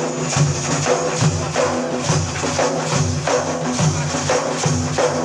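Instrumental break in Iraqi 'ataba singing: a steady hand-percussion beat, tambourine-like, over sustained low accompanying tones.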